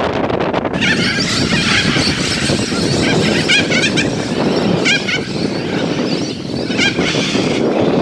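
Cockatoos calling over and over, starting about a second in, over a steady low rumble of wind noise.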